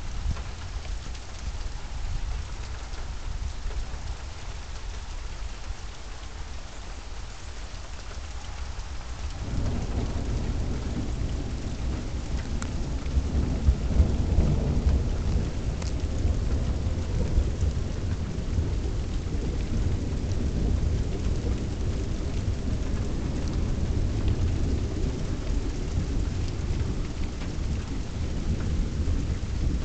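Steady rain falling, with a long low roll of thunder that starts about a third of the way in, swells and keeps rumbling.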